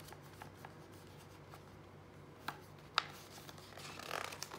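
Hand handling a picture book's page: a few light taps, then the paper rustling as the page is lifted and turned near the end.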